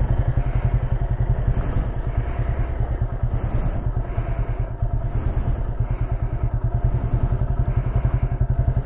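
Single-cylinder motorcycle engine running steadily at low revs, a fast even pulsing throb with no revving.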